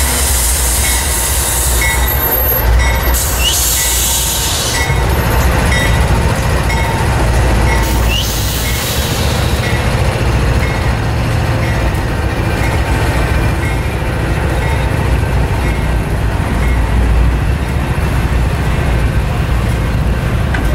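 A diesel-hauled freight train of boxcars rolling slowly past close by, with a steady low rumble from the locomotive and wheels. Bursts of high wheel squeal come a few seconds in and again about eight seconds in, and a short high ding repeats through the first half.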